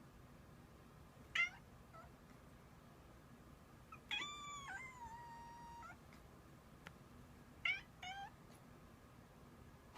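Domestic cat howling like a puppy: a short call, then a long drawn-out howl lasting about two seconds, then two short calls close together near the end.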